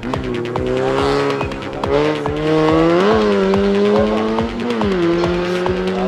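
Background music with a steady beat and held notes that step to a new pitch every second or two.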